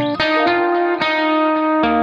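Background music led by a plucked guitar, its notes changing about every half second to a second.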